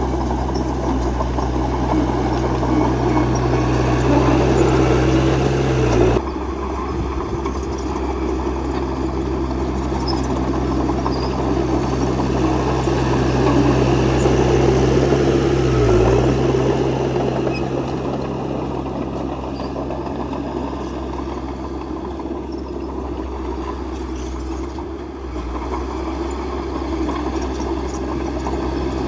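Bulldozer's diesel engine running steadily under load while pushing soil, with a low hum. The engine note dips sharply twice, about six seconds in and again about ten seconds later.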